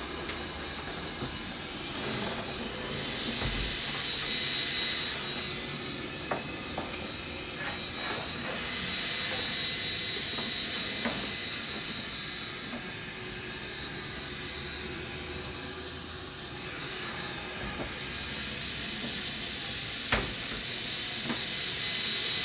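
Loewe Opta Moderna 1783 W valve radio hissing with static between stations. The hiss rises and falls, with faint steady whistles and a few sharp clicks in it.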